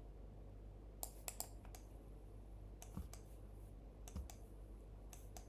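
A handful of faint, scattered clicks from a computer keyboard and mouse, over a low steady room hum.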